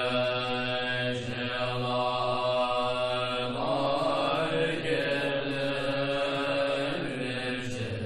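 Buddhist mantra chanting: a voice holding long sung notes over a steady low drone, the pitch shifting every second or two.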